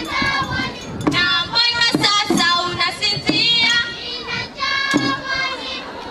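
A group of children singing a traditional song together in chorus, in short repeated phrases, with a few sharp beats struck in between.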